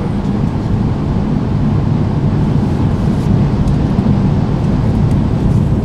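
Cabin noise of the superconducting maglev train accelerating, about 135 to 165 km/h: a steady, loud, low rumble.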